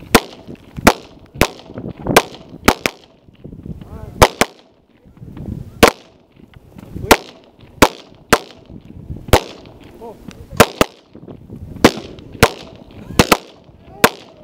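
Gunfire from several shooters firing together: about twenty sharp shots at irregular spacing, some in quick pairs, each with a short ring-out.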